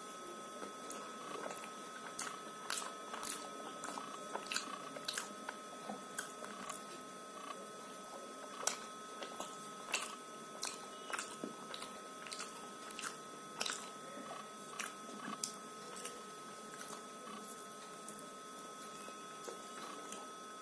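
Close-up chewing of a soft, syrupy kala jamun: repeated wet mouth smacks and lip clicks, frequent through most of the stretch and thinning out over the last several seconds.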